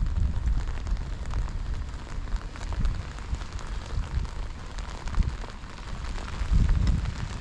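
Rain falling and pattering on wet paving, with wind buffeting the microphone in low, gusty rumbles that swell at the start and again near the end.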